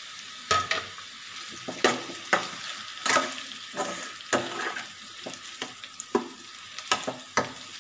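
Boiled potato pieces and onions sizzling in oil in a kadai, with a slotted metal spoon stirring and scraping them and knocking irregularly against the pan.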